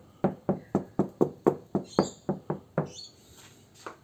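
Knuckles knocking on the steel door panel of a Toyota 76 Series Land Cruiser, about four even knocks a second for nearly three seconds, then one more knock near the end. The knocks show how the bare door rings like a drum.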